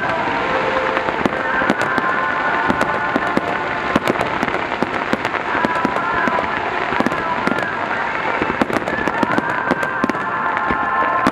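Dense barrage of aerial firework shells bursting: sharp bangs several times a second over a constant din of overlapping explosions.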